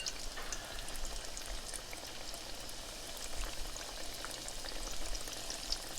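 Pieces of yeast dough frying in hot canola oil: a steady sizzling hiss with many small crackles and pops.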